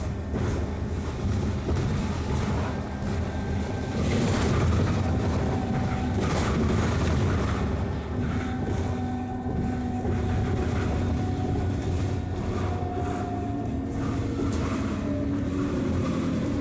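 Alexander Dennis Enviro400 double-decker bus heard from inside the saloon while under way: a steady low engine and drivetrain drone, with a whine that rises slightly in pitch in the second half and light interior rattles.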